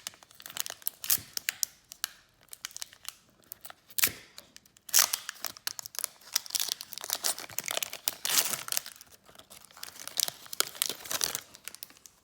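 A trading-card pack's foil wrapper being torn open and crinkled, in irregular crackling bursts with a couple of sharp snaps around four to five seconds in.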